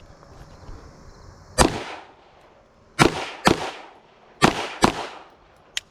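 Smith & Wesson M&P 2.0 22 Magnum pistol firing .22 WMR rounds: five shots, a single one about a second and a half in, then two quick pairs about half a second apart. A faint click near the end.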